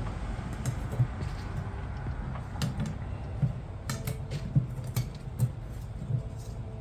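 Scattered light metallic clicks and clinks as automatic-transmission clutch discs and steel plates are handled, over a low steady hum.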